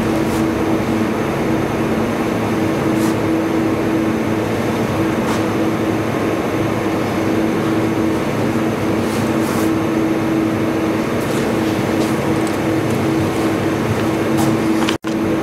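Steady machine hum and fan-like noise with a low, even drone, cutting out for an instant near the end.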